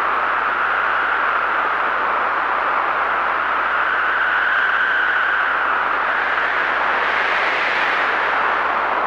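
Tornado-strength wind blowing as a steady rush of noise, its howl rising slowly in pitch to about halfway through and then sinking again.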